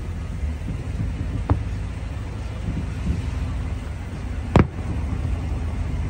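Fireworks shells bursting some way off: a dull bang about a second and a half in and a much louder, sharper bang about four and a half seconds in, over a steady low rumble.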